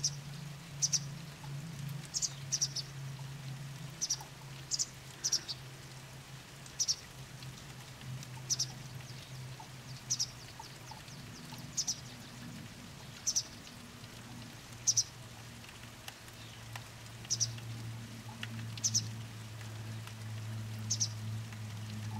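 A juvenile pied wagtail gives short, high calls, one every second or two and sometimes two in quick succession, which the recorder takes for a begging call. A steady low hum runs underneath.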